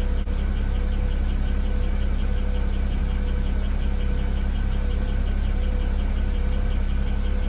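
BMW 335i's N54 twin-turbo inline-six idling steadily, an even low drone with a faint steady tone above it.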